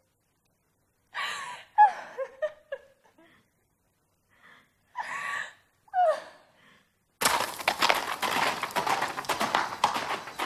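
A person crying out in short sobbing, wailing bursts, their pitch falling. About seven seconds in this gives way suddenly to a horse's hooves clattering fast across gravel.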